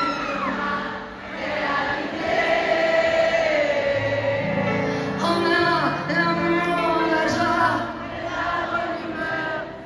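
Live concert music heard from the stands of a large arena: a band playing with singing that sounds like many voices together, and bass notes coming in about four seconds in.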